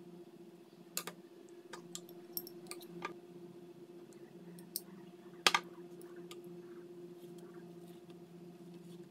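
Scattered light clicks and taps of a spoon and hands working on a cutting board and a stack of lumpia wrappers, a dozen or so in the first six seconds, the loudest about five and a half seconds in. A steady low hum runs underneath.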